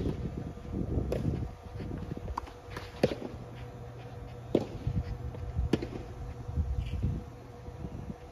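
Tennis rally: about five sharp pops of racket strikes and ball bounces, a second or two apart, over a low rumble.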